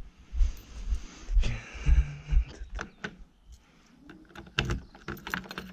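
Footsteps thudding up to a Zetor tractor, then a key clicking and rattling in the cab door lock near the end.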